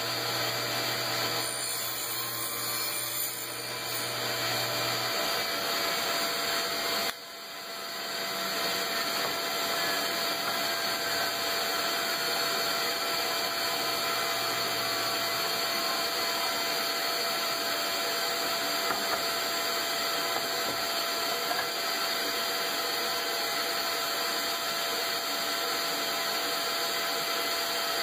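Power tool cutting 3/4 inch MDF with a shop vacuum running alongside to pick up the fine dust: a steady running noise with a few held tones. It drops suddenly about seven seconds in and builds back up.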